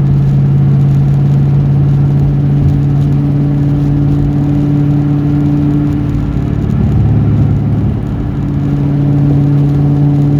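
1998 Mustang Cobra's 4.6-litre DOHC V8 running steadily with the car under way. The engine eases off briefly about six seconds in and picks back up near eight seconds.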